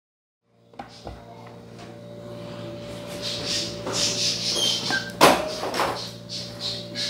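Placemats being laid out and smoothed by hand on a cloth-covered table, a soft repeated swishing and rustling, with one sharp knock about five seconds in, over a steady low hum.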